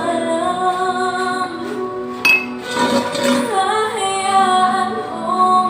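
Background music: a song with a woman singing over instrumental accompaniment.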